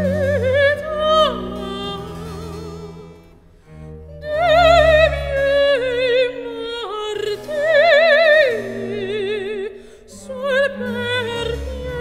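Background music: an opera-style voice singing a slow melody with wide vibrato over low sustained accompaniment, pausing briefly twice.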